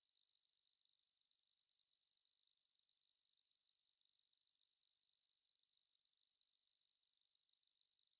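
Synthetic tinnitus tone: a single high-pitched pure sine whistle held perfectly steady, with no change in pitch or loudness.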